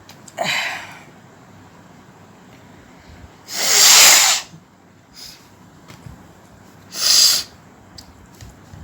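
A woman sneezing three times, a few seconds apart, each a sudden hissing burst. The middle one is the loudest and longest, and the first opens with a short voiced catch.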